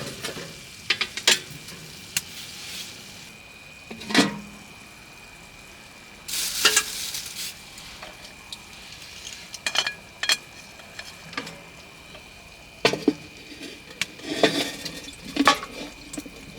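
Food sizzling in a pan while a utensil stirs and scrapes, with sharp metal-on-metal clinks and scrapes every second or two over a steady sizzle.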